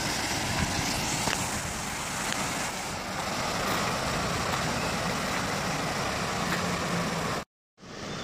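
Full-size van driving through floodwater across a road, heard as a steady rushing, splashing water noise that cuts off suddenly near the end.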